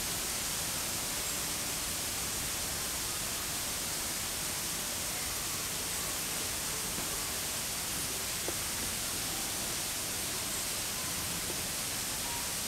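Steady, even hiss with no distinct events, and a faint click about eight and a half seconds in.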